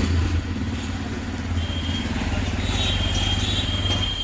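TVS Raider 125's single-cylinder engine idling steadily through its exhaust, dropping away right at the end.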